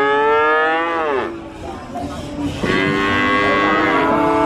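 Cattle mooing: a long moo that drops in pitch as it ends about a second in, then a second long moo starting near the middle and still going at the end.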